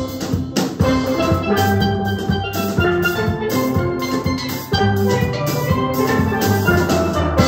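A steel band of several steel pans with a drum kit playing a lively tune, the pans ringing in chords over a bass line with regular cymbal strokes. The band ends on one loud hit together near the end, left ringing.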